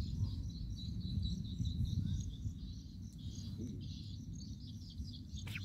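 Insects chirping in the grass, a steady run of high, rapid, repeated chirps over a low rumble, with one sharp click near the end.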